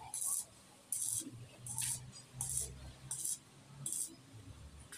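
Stick (arc) welding on iron: the electrode's arc crackles and hisses in short bursts, about six of them roughly every 0.7 s, as the arc is struck and broken again and again while a steel tab is welded onto the door frame.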